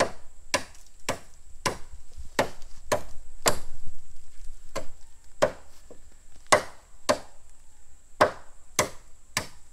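Itak (bolo machete) chopping into bamboo: repeated sharp strikes, about two a second, with a short pause about seven seconds in before the blows resume.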